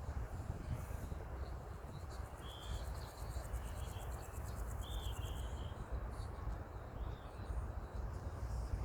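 Outdoor ambience: a steady low rumble, with a few short bird chirps in the middle and a high, fast-pulsing insect trill through the first half.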